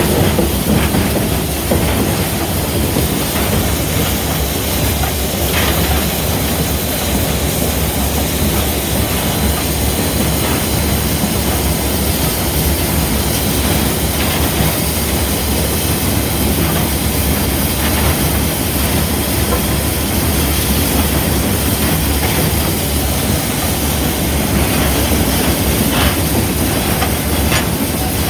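Inside the cab of Southern 4501, a 2-8-0 steam locomotive, under way: a loud, steady din of the running locomotive, wheels, running gear and steam, with a few faint clicks.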